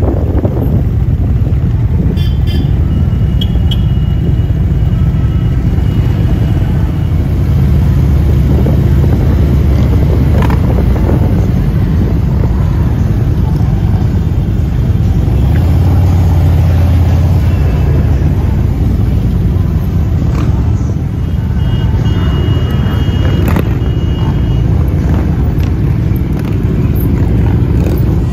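Motorcycle engine running steadily while riding, a dense low rumble heard from the rider's seat. Short high tones sound twice, near the start and again late on.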